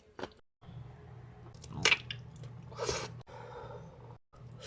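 Close-miked wet chewing and squishing of someone eating seafood boil, with a few sharp crackles, the loudest about two seconds in, over a low steady hum.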